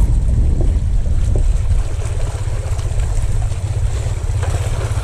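Wind buffeting an action camera's microphone: a loud, steady low rumble with a faint hiss above it.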